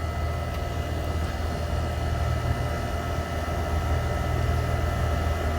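Central air conditioner condensing unit with a Copeland scroll compressor running: a steady low compressor hum under the even whoosh of the outdoor fan, with a few faint steady tones above.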